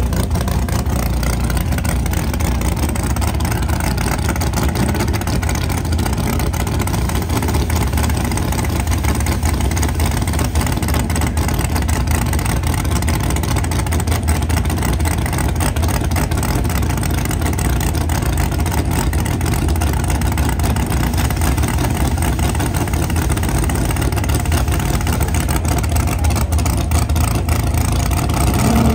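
Drag car's high-powered engine idling loudly and steadily at the starting line.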